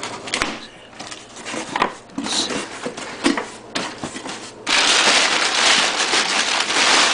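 A shipping box being opened by hand: scattered clicks and scrapes of cardboard and tape, then about two-thirds of the way in a loud, steady stretch of rustling and tearing packaging.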